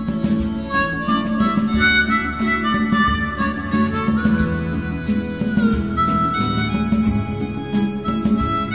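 Background music: a held, sliding lead melody over a regular rhythmic accompaniment.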